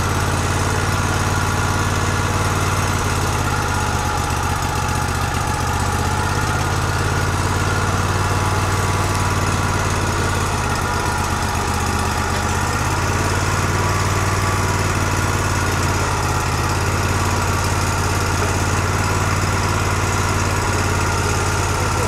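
Wood-Mizer hydraulic portable sawmill's engine running steadily, a constant low drone with no change in speed.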